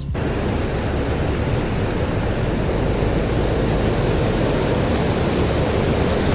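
Steady rush of river rapids: loud, even noise of fast-running water.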